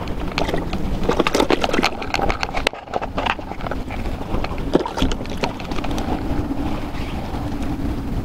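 Wind buffeting the microphone outdoors, with a run of sharp clicks and knocks of handling in the first few seconds. From about six seconds in, a steady low drone like a distant motor takes over.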